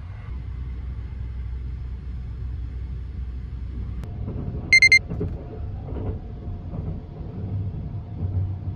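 Low, steady running rumble of the Sunrise Express sleeper train heard inside a compartment, with three quick, high-pitched electronic beeps from the compartment's digital clock-alarm panel about five seconds in.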